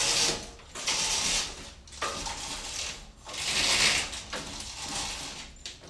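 Newly installed window blinds being worked by their cord, a run of rattling, ratcheting pulls each lasting about a second.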